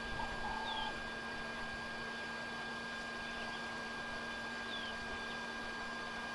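Steady hiss with two constant thin hum tones, over which a short held whistle sounds in the first second and two faint high, falling bird chirps come, one under a second in and one near five seconds.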